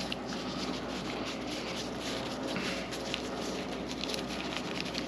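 Light, continuous crackling and rustling of a crisp nori sheet being rolled up around fried crispy rice by hands in disposable gloves.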